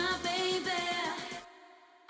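Background pop music with a wavering melodic line, fading away over the last half second.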